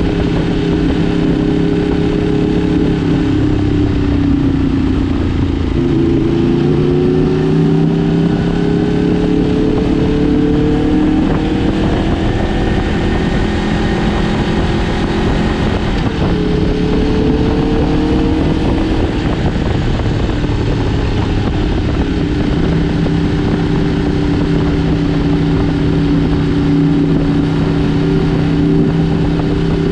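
Four-cylinder superbike engines running under way over a steady rushing noise. The engine note glides up about a third of the way in, shifts again about halfway, and settles into a steady cruise for the last stretch.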